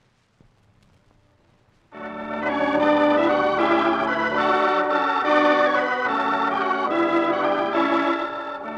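About two seconds of near silence, then organ music enters: slow sustained chords, a musical bridge leading into the next act of the radio play.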